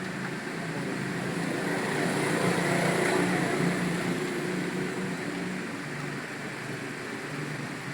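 Steady mechanical hum with a rushing noise, swelling slightly about two to three seconds in and then easing back.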